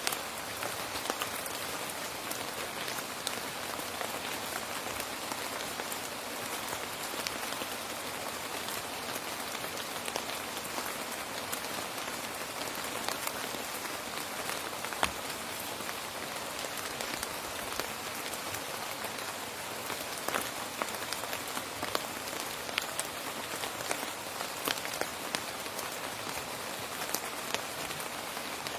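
Steady rain falling on a surface, a continuous patter with many individual drops standing out, a few of them louder.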